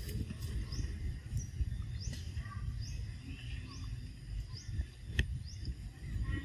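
Outdoor forest ambience: a bird repeats short, high chirps that sweep upward, one every half second or so, over a steady low rumble. There is a single sharp click a little after five seconds in.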